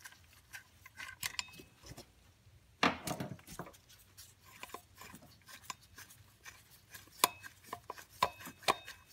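Water pump pulley bolts being unscrewed by hand from the pulley on a 3.4L V6: scattered small metallic clicks and clinks, a few ringing briefly, with one louder knock about three seconds in.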